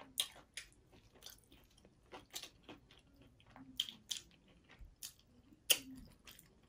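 A person chewing and biting taco salad on broken hard taco shell pieces: irregular crisp crunches mixed with wet mouth sounds. One crunch near the end is much louder than the rest.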